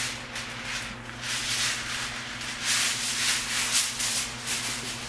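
Aluminum foil crinkling and rustling in irregular bursts as a large sheet is handled and spread out by hand, loudest in the middle.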